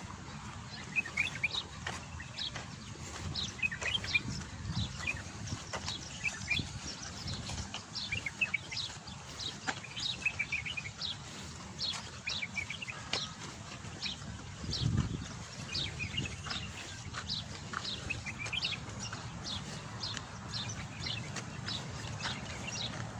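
Small birds chirping, a steady stream of short, quick, high chirps over a low background rumble.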